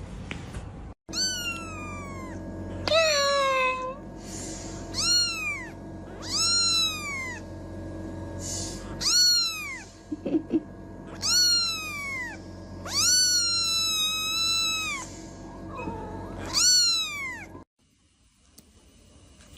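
A domestic cat meowing over and over: about nine drawn-out meows, each rising and then falling in pitch, with one longer, held meow near the middle. The meowing cuts off suddenly near the end.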